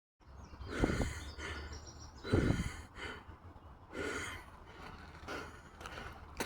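A person breathing hard and out of breath from running, with four heavy breaths about every one and a half seconds, the first two loudest.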